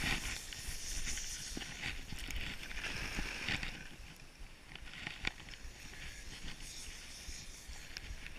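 Skis sliding and carving on snow, a hissing scrape that swells and fades with each turn, over a steady low rumble of wind on the camera microphone.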